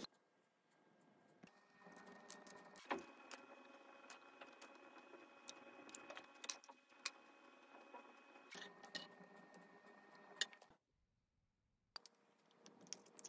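Near silence: faint room tone with a steady hum and scattered light clicks and taps, dropping to dead silence for about a second near the end.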